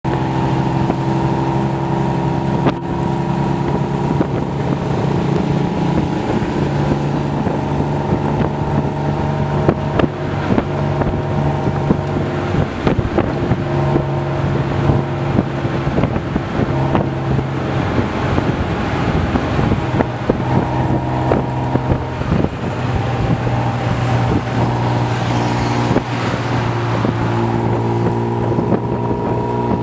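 Tuk tuk's small engine running under way, heard from the open passenger seat, its note stepping up and down several times as it changes speed, with wind and road noise over it.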